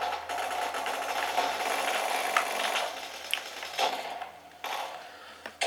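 First-person shooter game audio: a fast rattling run, like rapid gunfire, for about the first three seconds, then quieter with scattered sharp clicks and shots.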